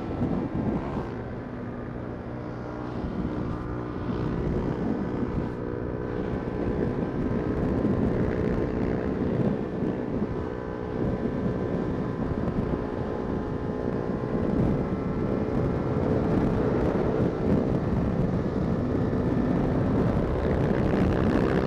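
Motorcycle engine running at freeway cruising speed, a steady engine tone over a dense rush of wind and road noise, growing gradually louder through the stretch.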